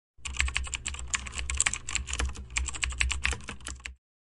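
Rapid typing on a computer keyboard, a fast, uneven run of key clicks over a low hum, starting abruptly and cutting off suddenly near the end.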